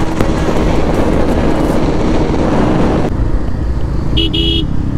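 Motorcycle riding with heavy wind and road rush on the camera microphone, which cuts off suddenly about three seconds in. Near the end a vehicle horn gives two short beeps in quick succession.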